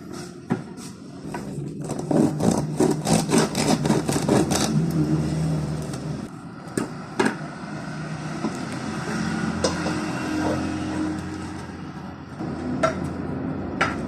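Crisp crust of a ciabatta loaf crackling: a rapid run of sharp cracks for about two and a half seconds, followed later by a few separate clicks and knocks.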